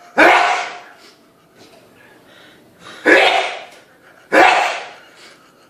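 A man's sneeze attack: three very loud, explosive sneezes, each dying away within about half a second. The first comes right at the start, then two more about three and four and a half seconds in.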